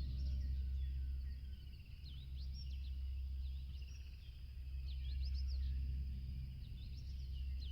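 Several small birds chirping and twittering in quick, short, rising notes, over a steady low rumble.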